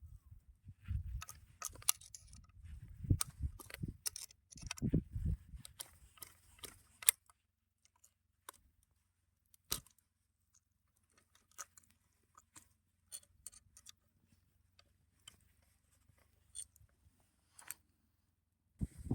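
Metal clicks and handling noise from a Lee-Enfield No.5 jungle carbine being handled, with no shot fired. Dull bumps and clusters of clicks come in the first seven seconds, then single scattered clicks a second or so apart.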